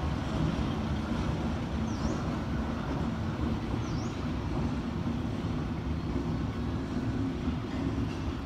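Small diesel shunting locomotive running at low power as it moves slowly along the station track; its engine makes a steady low rumble.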